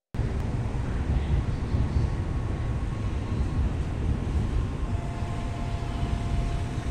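Steady low rumble and hiss on a Shinkansen station platform, with faint steady humming tones joining about five seconds in.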